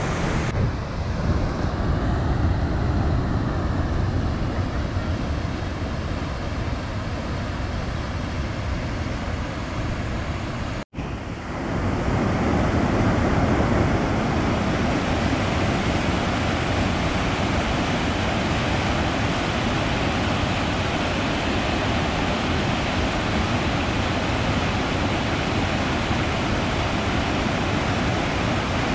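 Steady rush of fast-flowing water, river rapids or a waterfall, with a brief break about eleven seconds in, after which it is fuller and more even.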